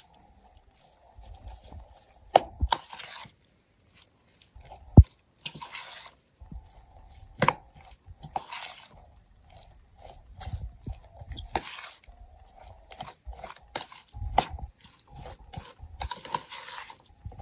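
A metal spoon stirring a mix of shredded raw cabbage, carrot and capsicum with chicken and mayonnaise in a ceramic bowl. The crisp vegetables rustle and crunch in short swishes, with irregular sharp clinks of the spoon against the bowl, the loudest about five seconds in.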